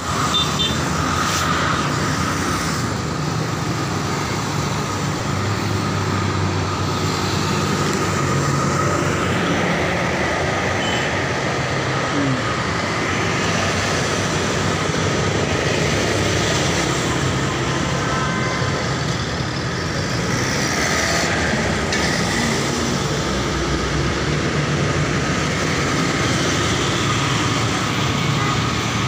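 Busy road traffic: motorcycles, cars and auto-rickshaws driving past, a steady mix of engine and tyre noise.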